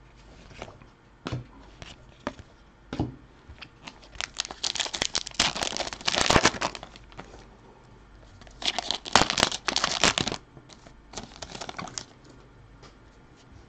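Foil wrapper of a Fleer Ultra hockey card pack being torn open and crinkled by hand, in two bursts of crackling a few seconds apart. Light rustles and taps of cards being handled come before and after.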